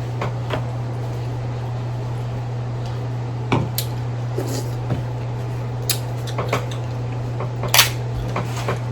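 Scattered sharp clicks and cracks of seafood shells and utensils being handled while eating a seafood boil, over a steady low hum.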